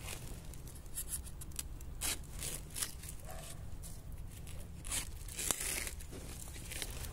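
Dry bamboo leaf litter rustling and crackling as a gloved hand and a knife move in among the bamboo shoots, with a few short sharp clicks scattered through.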